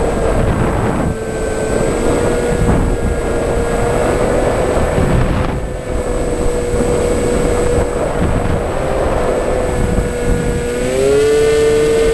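Electric motor and propeller of an FPV radio-controlled model aircraft running as a steady whine, with wind rushing over the onboard microphone. Near the end the whine rises in pitch and gets louder as the throttle is opened up.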